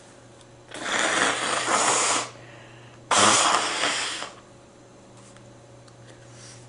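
A person blowing their nose hard twice: a long blow of about a second and a half, then a shorter one that starts abruptly.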